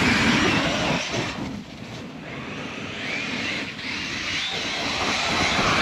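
Traxxas X-Maxx 8S RC monster truck's brushless electric motor whining up and down as it is throttled, with its tyres churning through snow. Loud at first, it fades about a second and a half in, then builds again with more rising and falling whines.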